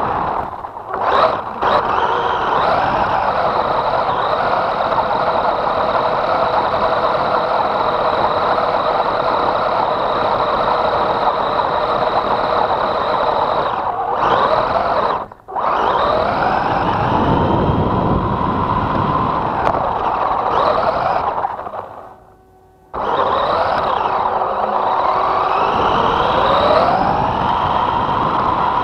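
Feiyue FY03 Eagle-3 1/12-scale 4WD RC truck's electric motor and gears whining, heard from on board, the pitch rising and falling over and over as it speeds up and slows down, over a steady hiss of tyres on wet paving. The motor noise drops out briefly three times: just after the start, around fifteen seconds in, and for about a second after twenty-two seconds.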